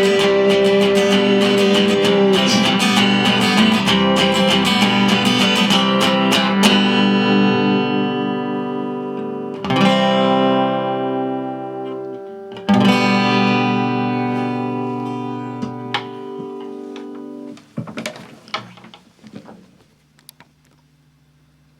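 Acoustic guitar strumming the end of a song, then two single chords, about ten and thirteen seconds in, each left to ring out and fade. A few soft clicks follow as the guitar falls still.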